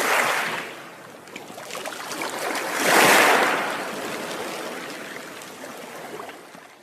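Sea water rushing and washing in two surges, the second and louder about three seconds in, then dying away.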